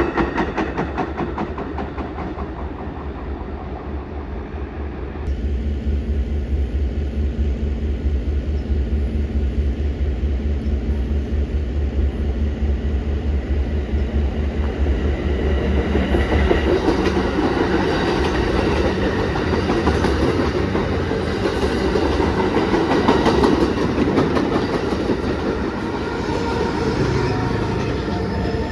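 A train passing close by, its wheels clacking steadily over the rail joints with a continuous low rumble.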